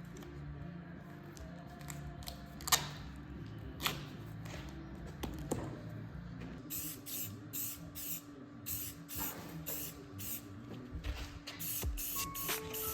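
Aerosol spray-paint can spraying in many short bursts of hiss, one after another, starting about halfway through. Before that there are a few sharp clicks.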